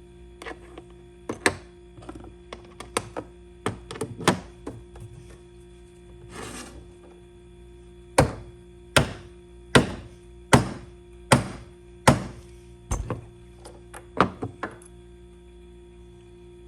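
Lee Loader hand tool being struck with a mallet to seat and crimp a .38/.357 Magnum bullet: a run of about six evenly spaced sharp thunks under a second apart from about eight seconds in. Lighter clicks and knocks of parts being handled come before and after.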